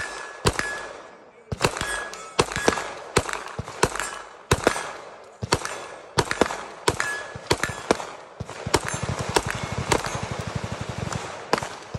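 Pistol shots from a Stealth Arms Platypus 2011, fired at a quick steady pace of about two or three a second, a few of them followed by a short ringing tone. From about nine seconds in comes a long rapid string of automatic fire, about a dozen shots a second, lasting a couple of seconds.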